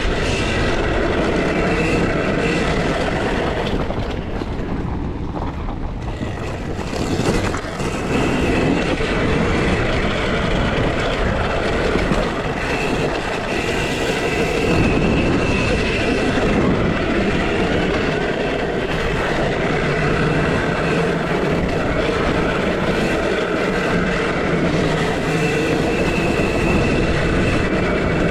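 2023 KTM SX-E5 electric minicross bike being ridden hard: its electric motor's high whine rises and drops away in stretches as the throttle is opened and closed, over a steady rushing noise.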